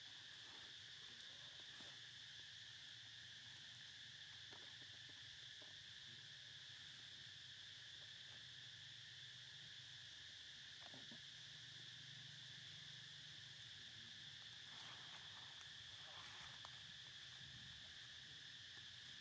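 Faint, steady drone of insects, one even high-pitched band of sound, with a few soft ticks and rustles scattered through it.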